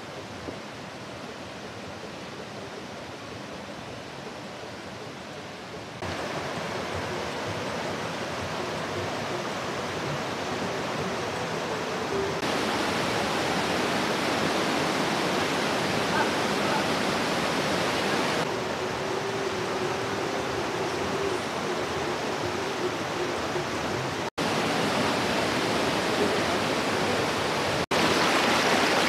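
Rushing water of a waterfall and river: a steady, even rush that jumps abruptly in level several times and is loudest near the end.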